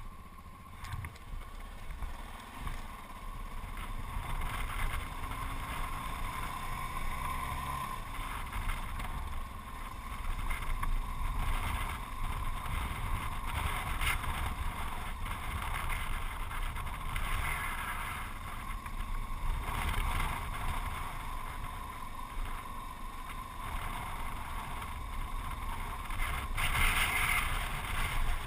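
Yamaha XT660Z Ténéré's single-cylinder engine running steadily while the bike is ridden on a gravel track, with occasional short knocks.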